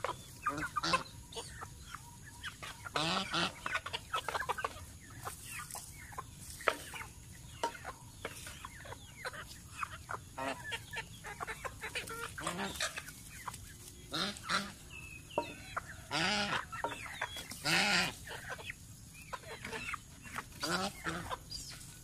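A flock of chickens clucking in short, scattered calls as they feed, with a few louder calls standing out.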